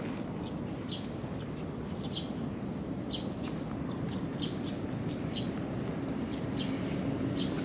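Small birds chirping: short high chirps at irregular intervals, about one or two a second, over a steady low background rumble.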